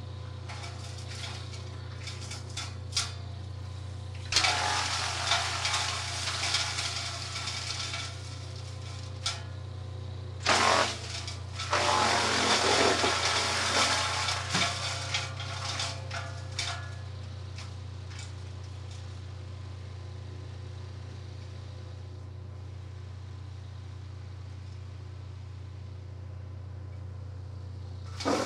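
Vermeer BC200 wood chipper running steadily on its 56 hp Kubota petrol engine, with a few sharp cracks near the start. Two loud spells of wood being chipped by its rotating disc and blades come, one about four seconds in and a longer one from about ten to sixteen seconds in.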